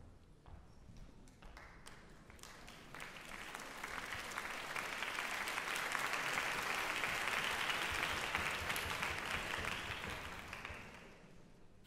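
Audience applause in a concert hall: a few scattered claps at first, swelling into full clapping about three seconds in, then dying away near the end.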